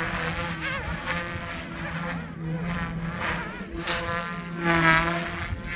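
Goosky S2 RC helicopter flying, its electric motor and rotors buzzing with a pitch that wavers up and down as it manoeuvres and passes. It is loudest about five seconds in.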